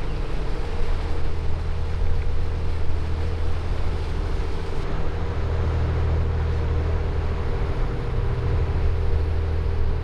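A boat's motor running steadily under way, a low drone with a constant hum, over a rush of water and wind.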